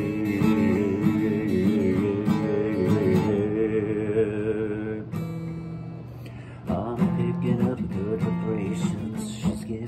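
Acoustic guitar strummed and let ring, with a man's voice holding a long wordless note over the first few seconds. The chord dies away about halfway through, and strumming starts again a couple of seconds later.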